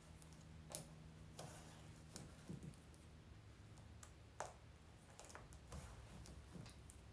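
Faint, scattered clicks and rustles of hand-sewing: a needle and thread being pulled through a mesh wig cap and lace closure. A faint low hum underneath stops about two seconds in.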